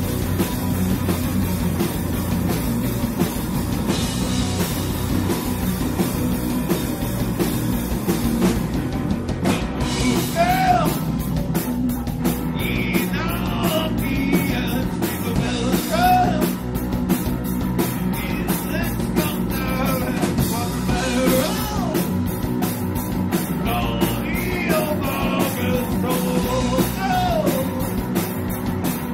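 Live rock band playing through amplifiers: electric guitars over a drum kit, the drums keeping a steady driving beat that comes through more sharply from about nine seconds in.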